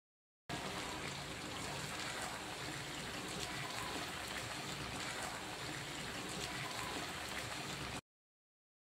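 Chicken pieces frying in bubbling oil in a pan, stirred with a spatula: a steady sizzle with small crackles that cuts off abruptly near the end.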